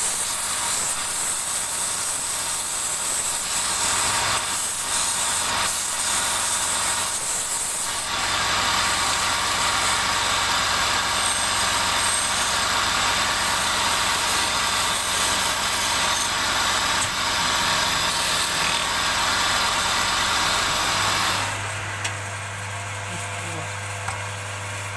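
Wood lathe running while a turning tool cuts the spinning workpiece: a steady hiss of cutting over the motor's hum. About 21 seconds in, the hiss drops away, leaving the steady motor hum.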